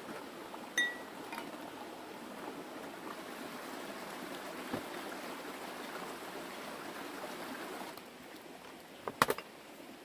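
Shallow stream running over rocks, a steady rush of water that drops away about 8 seconds in. A brief high-pitched note sounds about a second in, and a few sharp knocks come just after 9 seconds.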